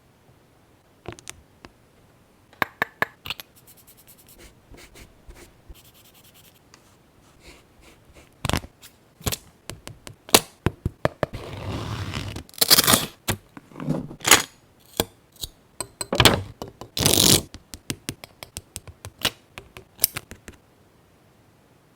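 Paper and craft materials being handled for scrapbook journaling: a long run of small taps, rustles and scrapes, with two louder, longer scraping sweeps about thirteen and seventeen seconds in.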